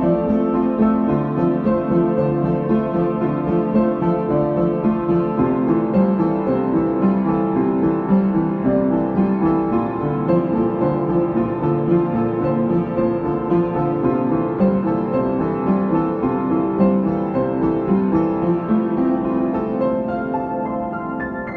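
Background piano music: a steady flow of notes, fading slightly near the end.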